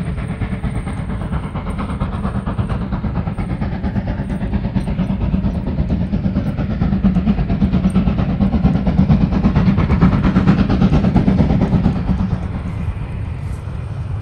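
German class 52 steam locomotive running past at close range with its train, the sound growing louder to a peak about two-thirds of the way through and then easing slightly.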